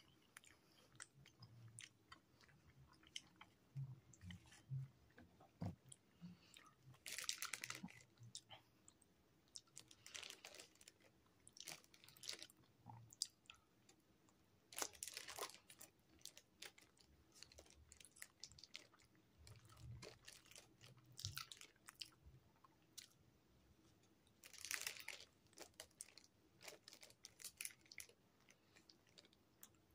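Quiet, close chewing and biting of food, a burrito and macaroni salad, with scattered short mouth clicks and a few louder wet bursts spaced several seconds apart.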